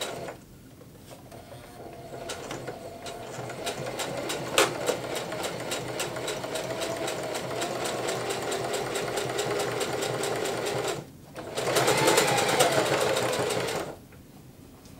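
Singer Heavy Duty household electric sewing machine stitching. It starts slowly a couple of seconds in and builds up speed, stops briefly about eleven seconds in, then runs a louder, faster burst that stops about a second before the end.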